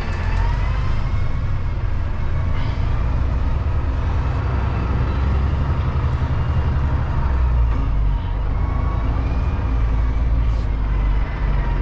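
Semi-truck engine running with a steady low rumble, heard from inside the cab as the truck moves slowly through a yard, with a faint wavering whine above it.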